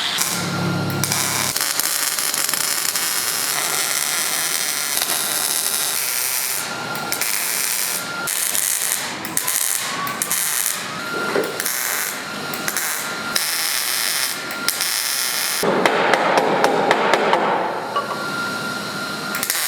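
Auto-body tool noise: a power tool working sheet metal, running on and off with sharp knocks and a thin whine, louder for a couple of seconds near the end.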